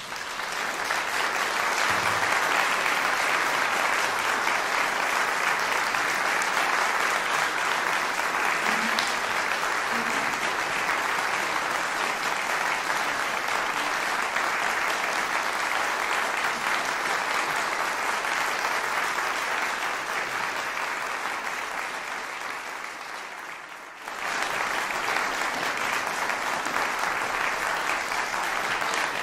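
Concert audience applauding at the end of a performance: the clapping breaks out at once and builds within a couple of seconds to a steady, dense level. It thins a little and then jumps back up abruptly about four-fifths of the way in.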